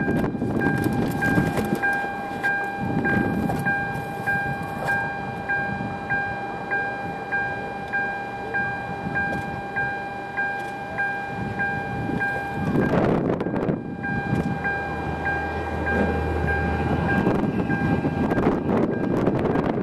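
Strong wind gusting across the microphone, over a steady electronic tone with a chime pulsing a little under twice a second; the tone breaks off for about a second during a heavy gust past the middle.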